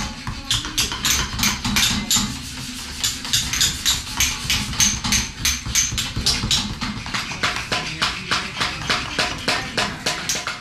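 Several hammers and mallets striking steel chisels into stone: an irregular clatter of overlapping sharp taps, several a second.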